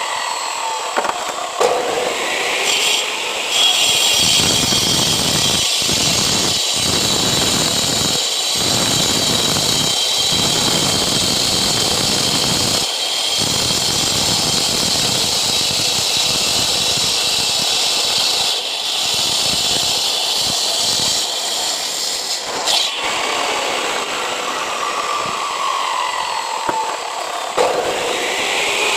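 Angle grinder with a cutting disc cutting concrete paving blocks: a high motor whine over a gritty grinding noise, the whine's pitch dropping and climbing again near the start and near the end as the blade bites and frees, with a few brief breaks in the cut.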